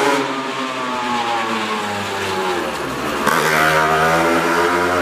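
Loud motorbike engine revving through the gears, its pitch sagging and then jumping up sharply about three seconds in as it accelerates away.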